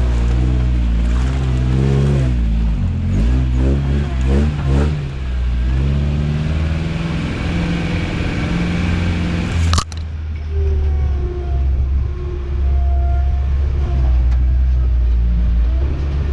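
Toyota truck's engine running under way off-road, its pitch rising and falling with the throttle in the first few seconds. There is a sudden break about ten seconds in, after which the engine carries on steadily.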